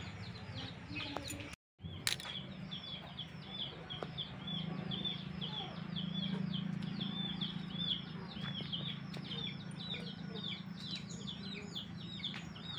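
Domestic chicks peeping: a continuous run of short, high, falling chirps, about five a second, over a low steady hum.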